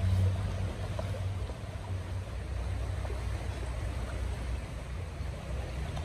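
Steady rushing of a river or stream, with a heavy low rumble underneath. A faint tap of a knife on a wooden cutting board about a second in.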